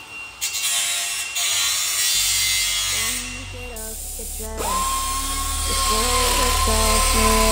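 Pneumatic hand tool running in long runs against steel, cutting away old brackets, with one short pause partway through. Background music with a bass line comes in underneath after about two seconds.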